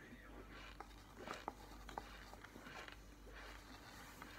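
Faint crunching and crumbling of chunks of cornstarch being chewed and picked apart by fingers in a plastic tub, with a few sharp clicks between about one and two seconds in.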